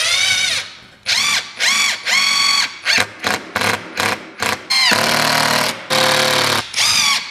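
Power drill driving screws through a wooden block into a ceiling: a series of trigger pulls, the motor whining up to speed on each. There are several quick short blips in the middle and two longer runs with a deeper tone near the end.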